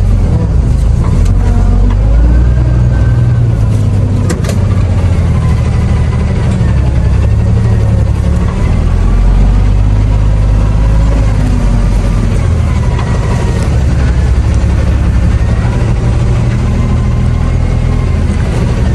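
Diesel truck engine running steadily at low revs while the truck is slowly backed into place.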